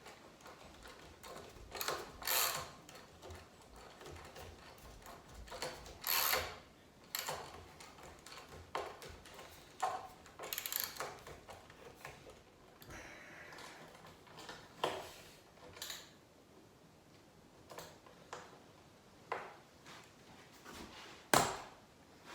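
Scattered knocks and clicks of wooden workpieces and tools being handled on a workbench, a sharp one every second or two, with a short scrape about two-thirds of the way through.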